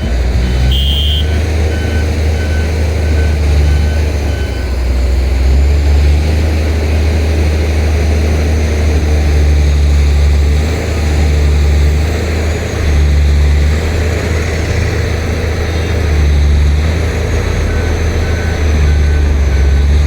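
Bulldozer's heavy diesel engine running under load, its low drone swelling and easing every few seconds as the machine works. A faint repeating beep, like a reversing alarm, sounds in the first few seconds and again near the end.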